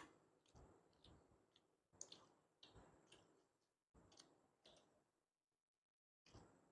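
Faint eating sounds: soft chewing thuds with small mouth clicks, coming in short bursts every couple of seconds.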